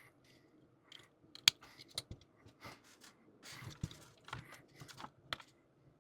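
Plastic snap-together model kit parts being handled and fitted: a series of sharp plastic clicks and light rustling, the loudest click about one and a half seconds in.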